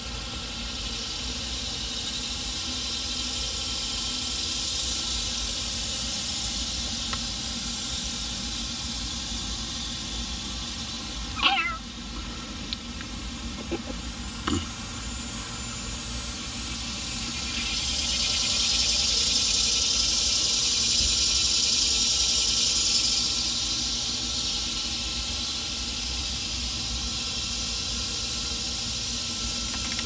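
A domestic cat meows once, a short falling call about a third of the way in. Under it runs a steady hum and hiss that swells for a few seconds past the middle.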